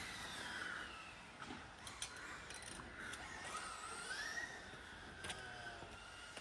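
Faint, distant small racing engine whining, its pitch rising and falling as it speeds up and slows, with a few light clicks.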